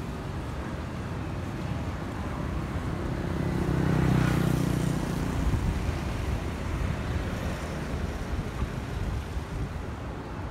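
Airliner flyover: the roar of an Airbus A320neo's CFM LEAP-1A turbofans overhead, swelling to its loudest about four seconds in and then slowly fading, with wind on the microphone.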